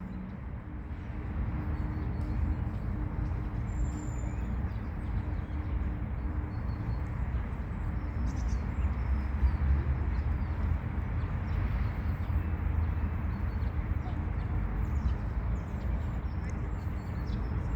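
Steady low traffic rumble with a constant hum, over which small birds give short, faint, high chirps here and there.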